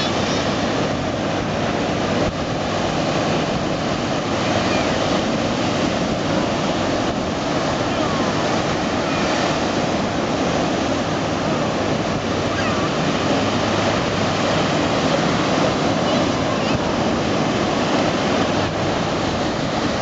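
Ocean surf breaking and washing through shallow water, a steady, loud rush of water.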